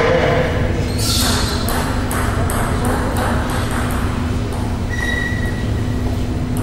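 Celluloid-type table tennis ball clicking off the table and the bats in a quick run of sharp ticks over a few seconds, over a steady low hum. A brief high squeak comes about five seconds in.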